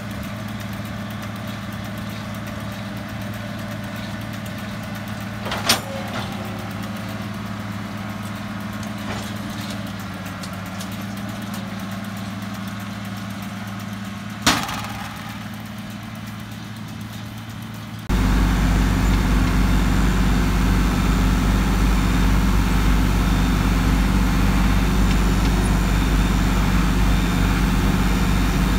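International tractor's diesel engine running steadily while it pulls a Vermeer round baler, with two sharp knocks about six and fourteen seconds in. About eighteen seconds in the sound jumps much louder and deeper, as heard from inside the tractor cab.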